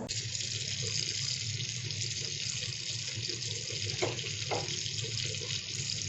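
Dried fish frying in hot oil in a kadai, a steady sizzle, with a couple of light knocks of the utensil against the pan about four seconds in as the fish are being turned over.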